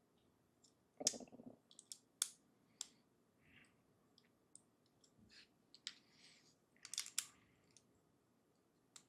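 Plastic LEGO bricks being handled and pressed together: a scatter of sharp clicks, a few grouped together about seven seconds in, with soft rustling of pieces in between.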